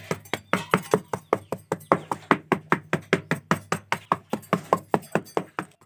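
Small metal trowel patting fine sand flat in quick, even taps, about five a second.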